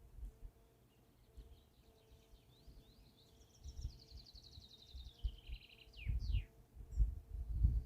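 A songbird singing a fast trill that falls gradually in pitch and ends in two quick downward sweeps. Low muffled thumps come in about five seconds in and are loudest near the end.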